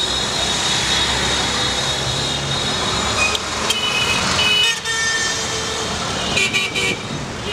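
Busy city street traffic: engines and tyres of auto-rickshaws, taxis and buses passing, with vehicle horns sounding again and again, one held for the first few seconds and then several short toots.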